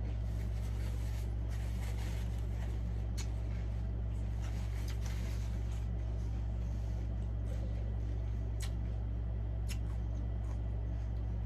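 Quiet eating sounds of someone chewing chicken wings: faint smacks and a few sharp clicks, over a steady low hum.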